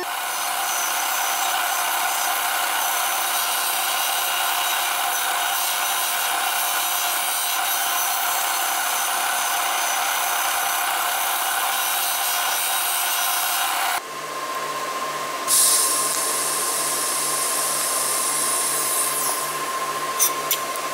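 Disc sander running with a titanium disc held against the abrasive, grinding its edge: a steady whine under a rough, noisy rasp. About two-thirds of the way through it cuts off abruptly, and a different steady machine hum with a high hiss takes over.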